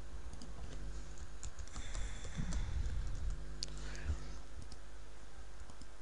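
Typing on a computer keyboard: scattered keystrokes entering a login email and password, over a steady low hum.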